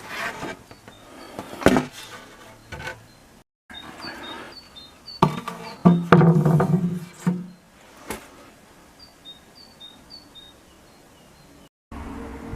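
Scattered knocks and clicks, with a louder low thudding stretch about six seconds in, over repeated short high chirps like small birds calling.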